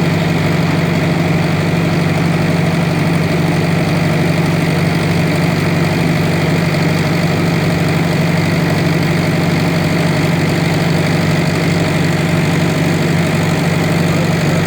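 An engine running steadily, a constant loud low hum that does not change.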